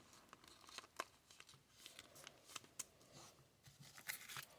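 Faint handling of trading cards: scattered soft clicks and slides as cards are sorted, with a slightly louder rustle about four seconds in.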